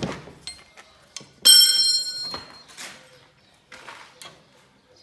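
Metal clanking during work on a plough: one sharp metallic clang about a second and a half in that rings brightly and fades over about a second, among lighter clicks and knocks.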